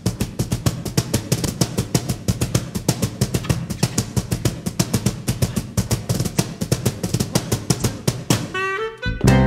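Drum kit playing a fast, even beat on snare and bass drum over low sustained notes. Near the end a rising run of notes leads into the full band coming in louder.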